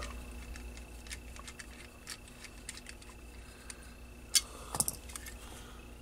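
Light clicks and taps from a radio circuit board and its plastic housing being picked up and turned over in the hands, with a few louder clicks about four and a half to five seconds in, over a faint steady hum.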